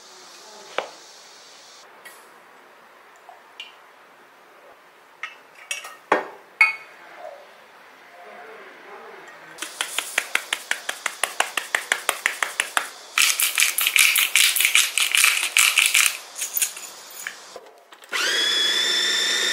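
Kitchen work sounds: scattered clicks, then a run of quick even taps about four to five a second and a denser rattling. About a second and a half before the end, an electric blender starts up with a rising whine and runs steadily.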